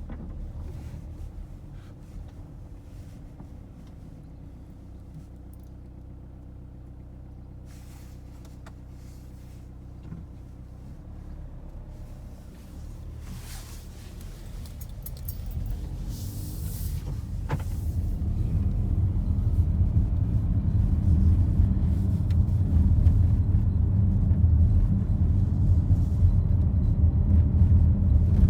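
Inside the cabin of a 2018 Volkswagen Tiguan: the engine hums steadily at first, then a low road rumble swells from about halfway through and stays loud as the car gets under way.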